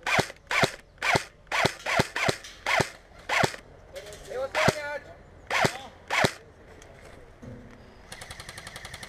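Airsoft rifle fired in single shots: about eleven sharp cracks at irregular intervals of roughly half a second, stopping about six seconds in. Near the end, a quieter rapid full-auto burst rattles out.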